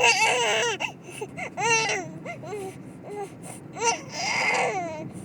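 Human baby crying: a loud wail at the start, then shorter, weaker cries and whimpers, one more wail about four seconds in, and the crying fading away near the end.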